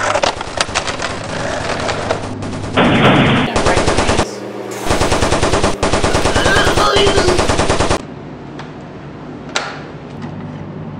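Machine-gun fire sound effects: long, rapid strings of shots in several bursts, which stop abruptly about eight seconds in, leaving only a few faint clicks.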